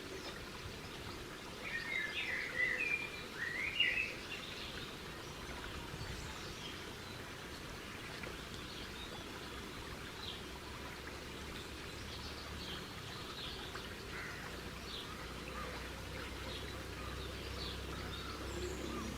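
Birds calling over a steady background hiss, with a quick burst of chirps about two seconds in and scattered faint chirps after.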